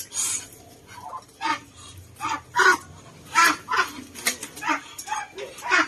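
A dog barking repeatedly in short, separate barks, mixed with the wing flapping of a Muscovy duck being held up.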